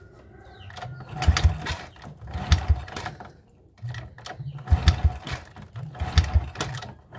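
Honda motorcycle engine being turned over four times with the drain plug out, each turn a burst of mechanical clicking with a low thump, about a second and a half apart; the cranking pushes the remaining oil out of the drain hole.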